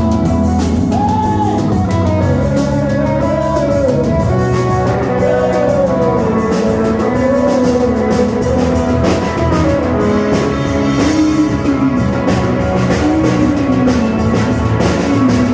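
Music with a steady drum beat and guitar, carrying a wavering lead melody that slides between notes and drops lower about halfway through.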